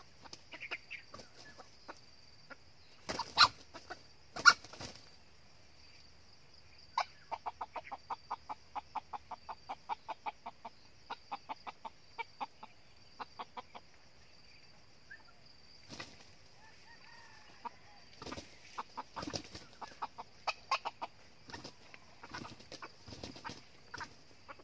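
Red junglefowl clucking in a fast, even run of short notes, about four or five a second, with loud scuffling bursts about three and four and a half seconds in and more clucks and bursts later.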